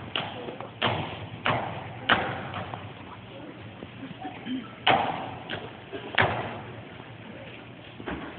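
A series of sharp bangs echoing through a large hall, about seven of them coming every half second to second, with a pause of about three seconds between the first four and the last three.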